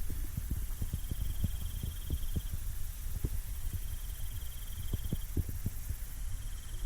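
An insect's pulsed, high trill, repeated three times about every two and a half seconds, over a low rumble with irregular dull thumps.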